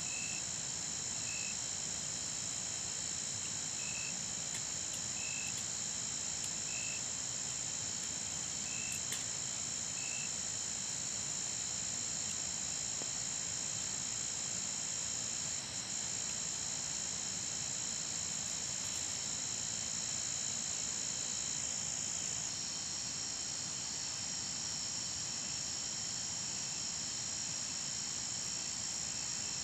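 Evening chorus of crickets and other insects: a steady, high-pitched shrill of several layered tones. A short chirp repeats about every second and a half for the first ten seconds, and one layer of the chorus stops about two-thirds of the way through.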